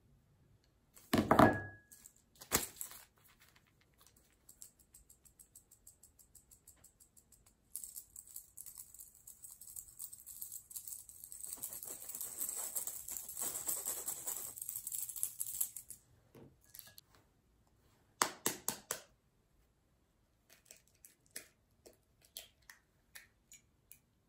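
Flour and baking powder sifted through a hand-held stainless steel mesh sieve onto parchment paper: a thump as the flour is tipped into the sieve, fast light ticking as the sieve is shaken, then a long rustling hiss of flour falling through the mesh, and a few knocks near the end.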